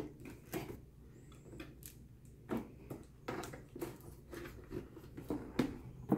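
A knife scraping and cutting at the tape seal of a small cardboard box, with irregular scratches, clicks and taps as the box is handled; the seal is hard to get open.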